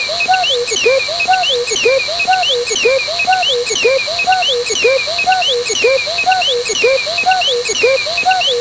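A short sound with gliding, up-and-down pitch, repeated in a tight loop about once a second.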